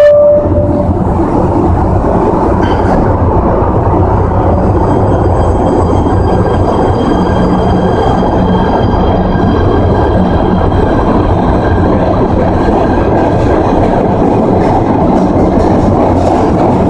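PATH PA5 subway train pulling out of the station and running past on the rails with a steady loud rumble. A short chime tone, fitting the door-closing chime, sounds at the very start. A faint high whine joins the rumble after about five seconds.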